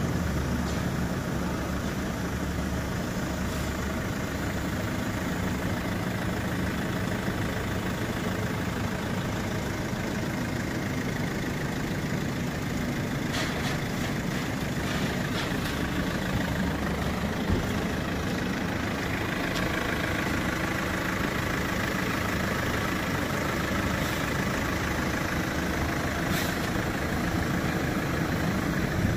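Chevrolet Captiva's 2.0-litre four-cylinder turbo diesel idling steadily, with a few light clicks about halfway through.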